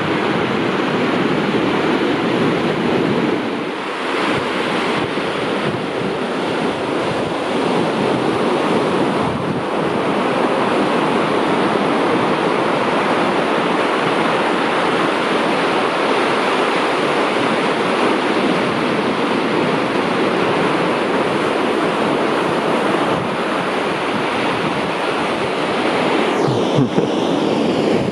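Atlantic surf breaking and washing up a sandy beach: a steady rush of waves.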